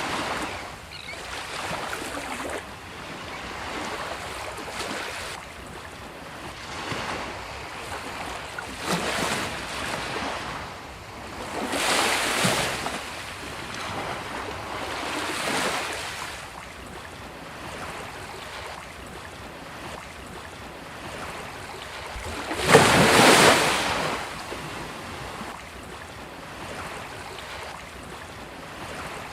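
Sea waves breaking and washing up a beach, a steady surf with swells every few seconds. One louder wave crashes about two-thirds of the way through.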